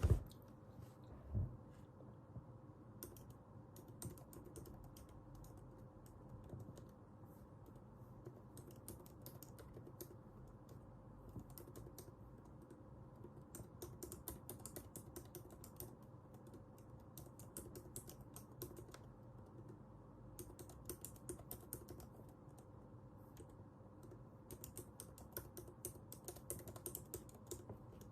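Typing on a computer keyboard: bursts of rapid key clicks a second or two long, with short pauses between them. Two soft low knocks sound near the start.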